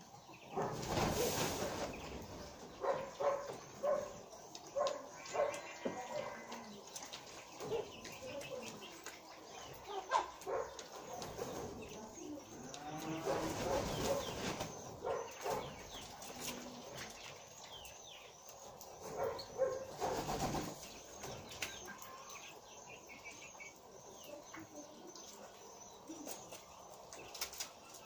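Mixed aviary birds: wings flap in loud bursts about a second in, around the middle and about three quarters through, with scattered short chirps and calls in between.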